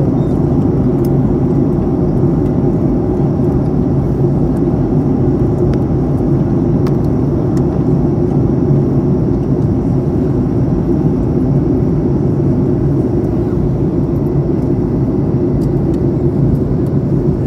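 Steady cabin noise of a Boeing 737-800 in flight, heard inside the cabin at a window seat: an even, deep rumble of engines and rushing air that holds without change.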